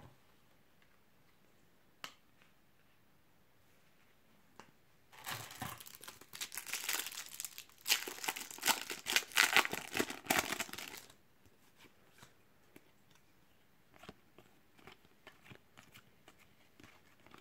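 A Topps Match Attax trading-card packet being torn open, its wrapper crinkling loudly for about six seconds from around five seconds in. Before that comes a single light click of a card set down, and after it come faint ticks of cards being handled.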